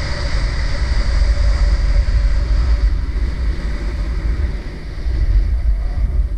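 Wind buffeting an action camera's microphone during a fast ski descent, a continuous low rumble, with the hiss of skis sliding over packed, groomed snow.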